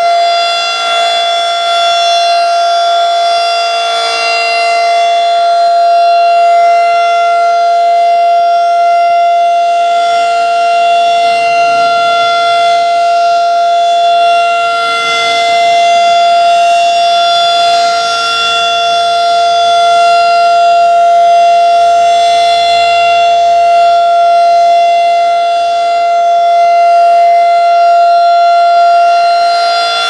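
Federal Signal 2001-DC twelve-port rotating civil defense siren sounding a steady alert tone, a held two-note chord with no rise or fall in pitch. The loudness swells and fades slowly as the rotating horn sweeps toward and away.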